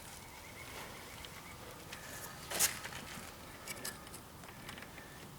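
Faint clicks and scraping of a hand tool working a bent nail, used in place of a cotter pin, out of a car's shifter linkage, with one louder, brief scrape about two and a half seconds in.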